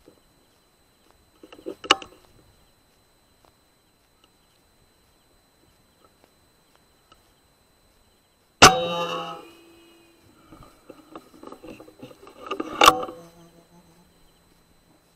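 Air rifle fired at a wild hog at night: two sharp shots about four seconds apart, the first trailing off over about a second, with rustling in the brush between them. A smaller sharp click comes about two seconds in.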